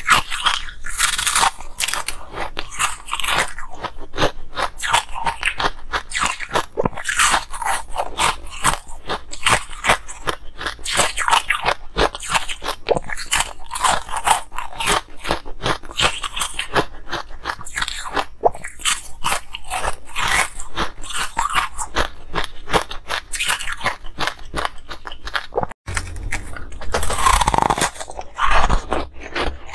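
Hard ice being bitten and chewed close to the microphone: dense, irregular cracking crunches. A momentary dropout comes near the end, after which the crunching is louder for a couple of seconds.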